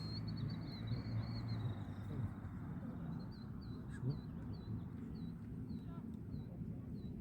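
A bird calling: short high notes repeated about three times a second, over a steady low background rumble.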